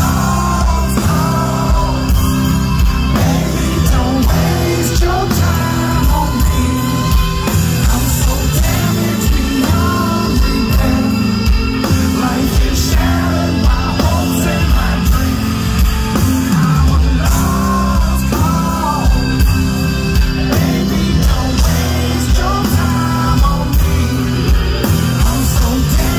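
Loud live band music through a concert PA, with a man singing lead into a microphone, recorded from within the crowd.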